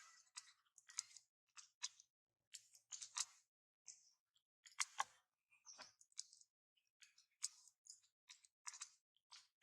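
Faint, irregular clicks and smacks, two or three a second, with one sharper knock about five seconds in.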